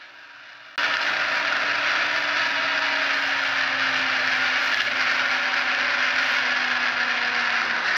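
Loud, steady mechanical rattling and whirring with road noise from a vehicle running down a paved mountain road, picked up by a camera mounted low on the vehicle. It cuts in suddenly just under a second in and cuts off sharply at the end.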